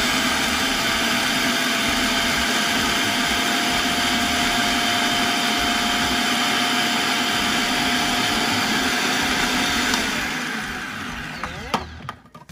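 Food processor motor running at full speed, its blade chopping roasted peanuts into crumbs, with a steady whine over the grinding noise. It is switched off about ten seconds in and spins down, and a sharp click follows near the end.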